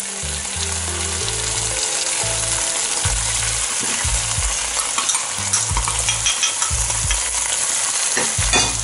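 Chicken and long beans in red curry paste sizzling steadily in a frying pan.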